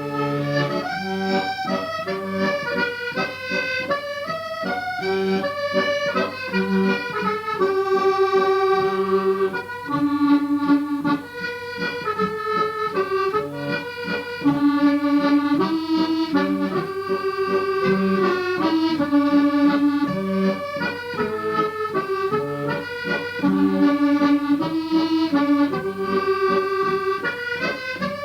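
Accordion playing a traditional tune: a bright melody of held and stepping notes over regular bass-button chords and a steady low drone.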